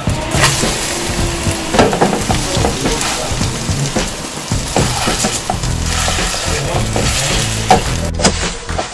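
Kimchi pancake (kimchijeon) sizzling in oil in a nonstick frying pan, with scrapes and taps of a slotted spatula as it is flipped and then pressed flat to crisp the second side.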